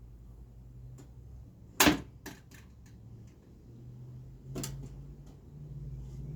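Nail gun firing twice, about three seconds apart, the first shot the louder, with a few lighter clicks in between, over a low steady hum.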